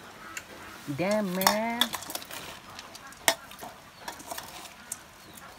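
Steel spoons scraping and clinking against a steel bowl as dry puffed rice is stirred and tossed, with a sharp clink about three seconds in. A fowl's honking call about a second in is the loudest sound.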